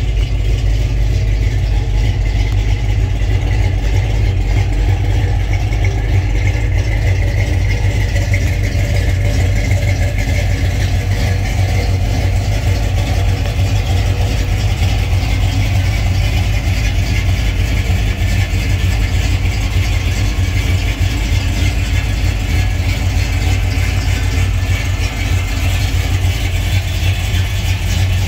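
The 302 V8 of a 1984 Ford F-150, built to about 340 hp, idling steadily with a low rumble.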